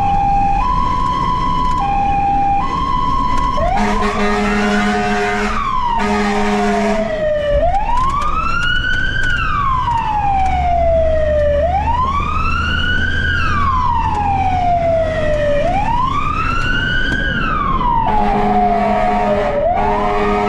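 Fire engine siren on an emergency run. For the first few seconds it plays a two-tone hi-lo, then switches to a slow wail that rises and falls about every four seconds. A deep horn blasts twice as the wail begins and twice again near the end.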